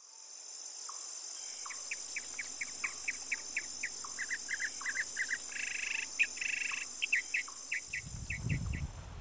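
Woodland ambience: a steady high-pitched insect trill, with a bird singing a string of short repeated chirps, about three a second, broken by a brief buzzy phrase midway. A low rumble comes in near the end.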